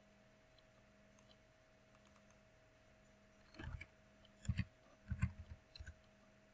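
Computer mouse being clicked and handled on the desk: a handful of short clicks with soft thumps bunched in the second half, over a faint steady hum.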